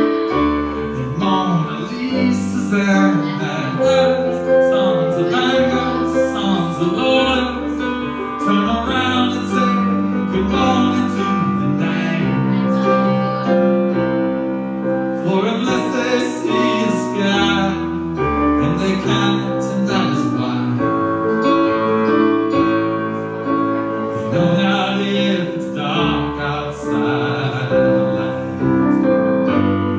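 A man singing to his own accompaniment on a Roland RD-700NX digital stage piano: sustained chords and bass notes under a solo male voice, in a piano ballad.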